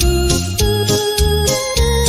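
Electronic keyboard playing a held, organ-like melody over a dance-style backing track with a steady bass-and-drum beat of about two beats a second.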